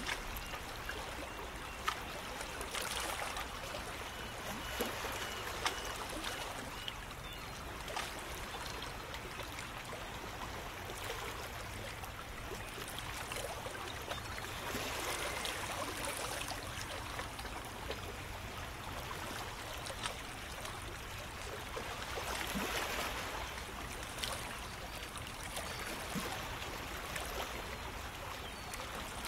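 Shallow water lapping and trickling over rocks: a steady wash that swells gently every several seconds, with a few small splashes.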